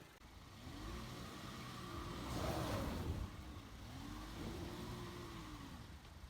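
2019 Volkswagen Jetta's turbocharged four-cylinder engine revving up and back down twice as the car, stuck in snow, tries to pull free, with a hiss near the top of the first rev from a front wheel spinning on the snow.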